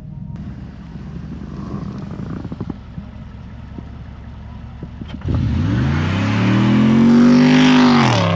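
A low rumble with scattered clatter, then, about five seconds in, a car engine suddenly opens up and revs rising steadily in pitch for about three seconds before the revs drop sharply, as at an upshift.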